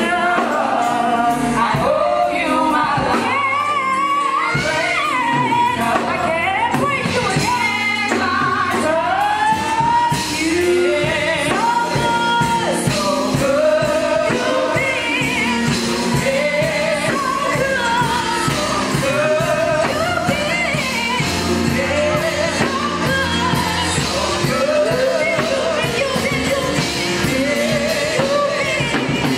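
Live gospel singing: a female lead singer on a microphone with backing singers, over accompaniment with a steady beat, in a large hall.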